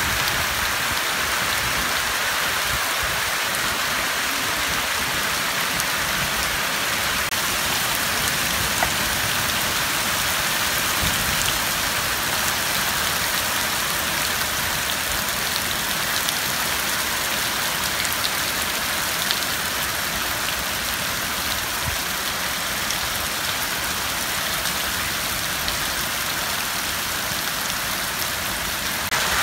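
A heavy downpour of rain mixed with hail beating on maize plants and wet ground. It is a steady, dense hiss with scattered sharp ticks from individual stones striking.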